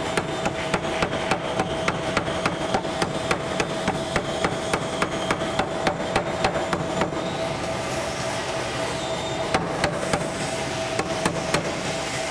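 Power hammer striking hot H-13 tool steel, forging the striking head on an axe drift: rapid, even blows about four a second, which thin out to fewer, irregular blows about seven seconds in, over a steady hum.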